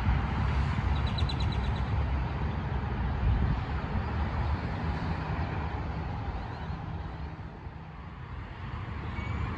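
Steady outdoor noise of road traffic with a low rumble, easing off late on and building again near the end. A short run of quick high ticks comes about a second in.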